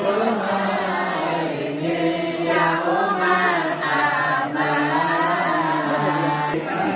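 A large group of women and men chanting Islamic devotional verses in unison from booklets, a Malay marhaban-style chant sung in long, drawn-out notes.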